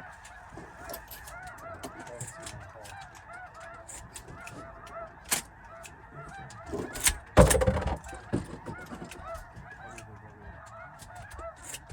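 Snow geese calling: a dense, steady chorus of many short overlapping honks from a large flock. A loud thump comes about seven and a half seconds in.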